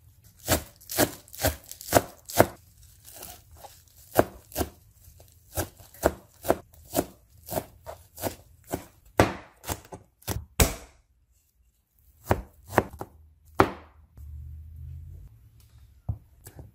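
Knife chopping fresh herbs on a cutting board: a run of sharp, uneven strokes, about two a second, with a short pause, stopping a few seconds before the end.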